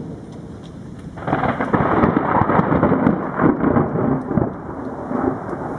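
A peal of thunder breaks suddenly about a second in. It rumbles and crackles for about three seconds, then dies away.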